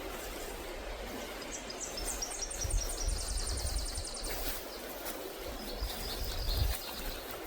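Songbird singing two high, fast strings of short repeated notes, the first about one to four seconds in, the second shorter and lower near the end, over steady outdoor background hiss.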